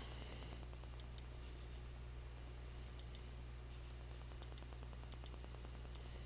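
Faint computer mouse clicks, several scattered through and some in quick pairs, over a steady low hum.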